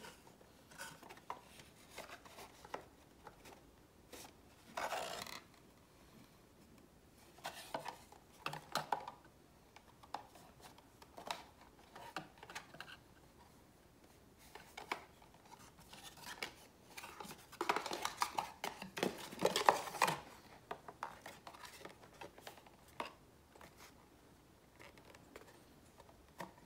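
Scattered faint clicks, scrapes and rustles of a GoPro Max 360 camera and its plastic packaging being handled while it is worked loose from its holder, with a busier, louder stretch of handling about two-thirds of the way through.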